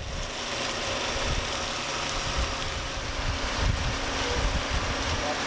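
An engine running steadily under a constant hiss.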